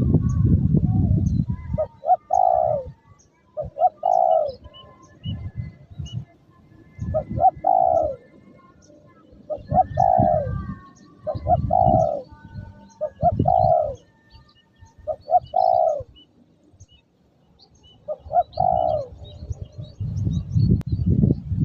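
Spotted dove (tekukur) cooing a repeated phrase of short notes ending in a longer falling coo, about every two seconds. Gusts of wind rumble on the microphone, loudest at the start and near the end, with faint high chirps above.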